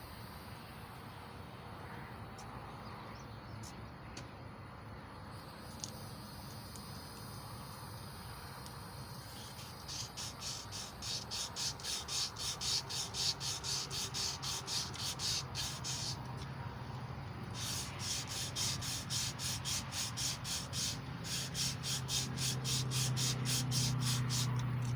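Emery cloth rubbing back and forth on a small-block Chevy 350 crankshaft journal, polishing it. Quick, even strokes, about three to four a second, begin about ten seconds in.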